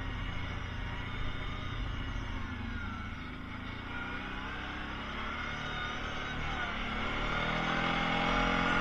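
Kawasaki Prairie ATV engine running while riding, rising in pitch and getting louder near the end as it speeds up.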